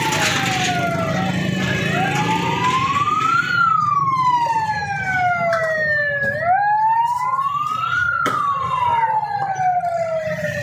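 A siren wailing in a slow rise and fall, sweeping up quickly and sliding down slowly about every four and a half seconds, over the rumble of busy street traffic and crowd noise.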